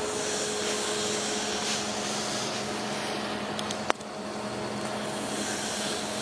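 Breathing of a sedated patient with an obstructed upper airway: a rushing hiss swells and fades about twice, over a steady hum. A single sharp click just before four seconds in.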